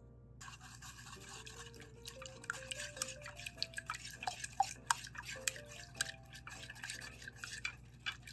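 A utensil stirring and scraping in a mixing bowl: a busy, irregular scratching with many small clicks that starts suddenly about half a second in. Soft background music with a simple melody plays under it.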